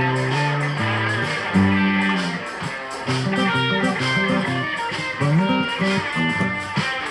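Live blues band playing an instrumental passage between sung lines, an electric guitar carrying the melody over a steady beat.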